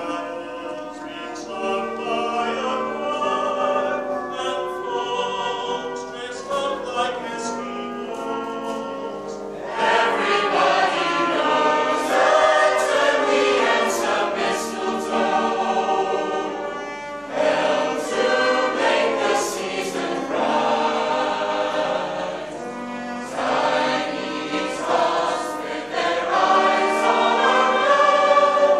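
A choir singing a Christmas carol from a medley, with held notes in several voices, growing louder about a third of the way in.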